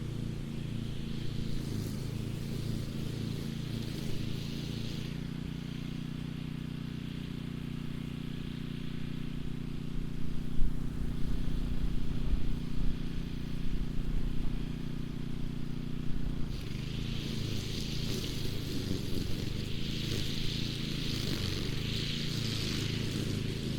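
Small gasoline engine of a walk-behind mower that cuts with spinning nylon cords, running steadily under load. A higher hiss of the cords cutting through brush comes in at the start and again in the second half, with irregular knocks as it hits sticks in between.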